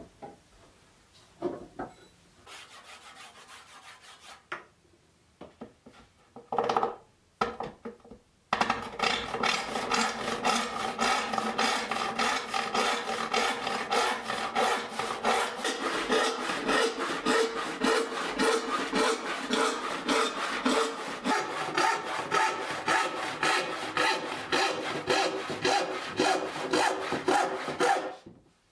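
A handsaw rip-cutting an air-dried pine board along the grain, in a steady run of rasping back-and-forth strokes that starts about eight seconds in and stops abruptly near the end. Before the sawing, a few light knocks and scrapes of wood on the bench.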